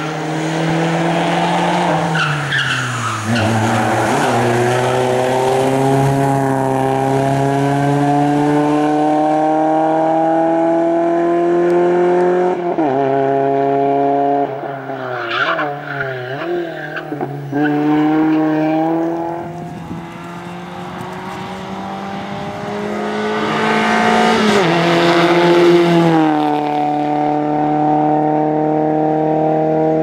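VW Golf III rally car's engine revving hard, its note climbing through the gears with sharp drops at upshifts about three seconds in, near the middle, and near the end. Around the middle the engine note falters as the car brakes and slides through a tight cone chicane, the tyres squealing.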